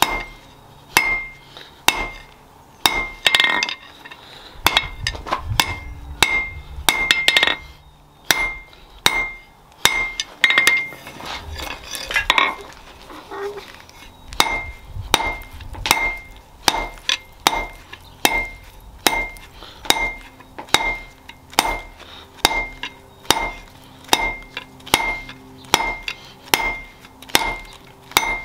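Hand hammer striking steel on an anvil, a long run of blows at about one to two a second, each with a bright metallic ring. The blows are uneven and sometimes doubled in the first half, then fall into a steadier rhythm.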